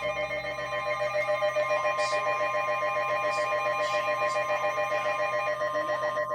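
Electronic emergency alert tone sounding: a steady high tone with several other tones pulsing rapidly alongside it, some of which stop about five and a half seconds in.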